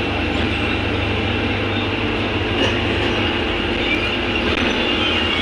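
Steady running noise of a city bus, heard from inside the cabin as it drives along: engine hum, road noise and body rattle.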